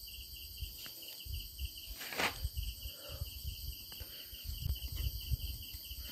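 Insects chirping outdoors in a steady, finely pulsing high trill, over low rumbling bumps, with one brief scraping noise about two seconds in.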